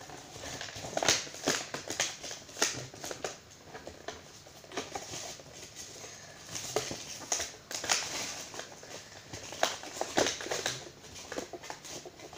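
Foil and plastic packaging being handled, crinkling and rustling with irregular sharp crackles and clicks.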